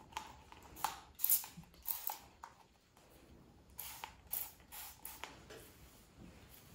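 Hand-held spray bottle misting water onto hair: a series of short hissing sprays in two bunches, the second bunch about four seconds in.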